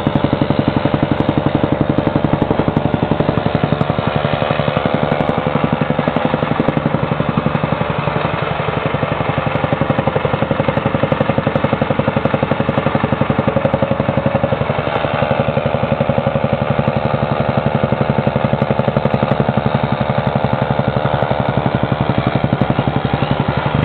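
A motor or machine running steadily and loudly, with a fast, even pulse.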